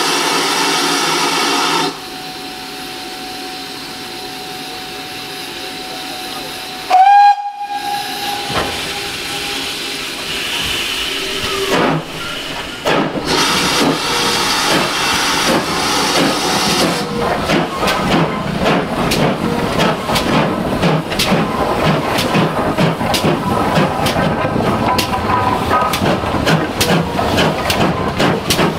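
GWR 5700-class pannier tank steam locomotive giving one short whistle blast about seven seconds in, then hissing steam from its open cylinder drain cocks. In the last third the locomotive is chuffing in a steady rhythm as it moves off.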